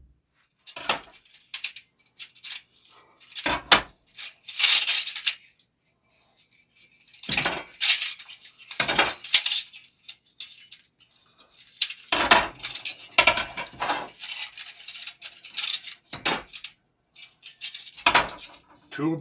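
Metal tool items clinking and clattering as they are handled, in irregular bursts with short pauses.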